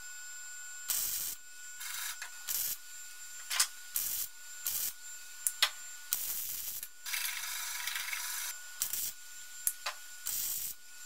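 MIG welder arc crackling in about a dozen short bursts, stopping and starting, as a square patch is tack-welded into a car's steel sill. The longest burst, about a second and a half, comes past the middle.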